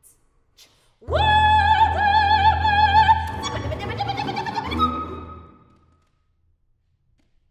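A soprano sings one long high note with wide vibrato, scooping up into it, over a bowed double bass holding a low note. It starts about a second in and fades out near the end.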